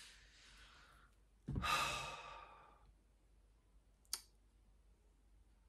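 A man sighing: a soft breath out, then a longer, louder exhale through the open mouth that fades away. A single short click about four seconds in.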